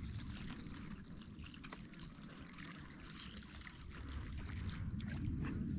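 Faint trickling and irregular light ticks of water over a low steady rumble.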